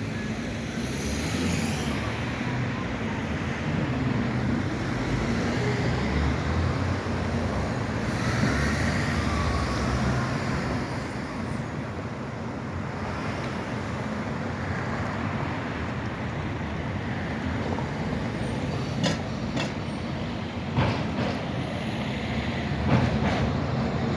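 A tram rumbling along its tracks amid road traffic, with a faint high squeal about eight seconds in and a series of sharp clicks near the end.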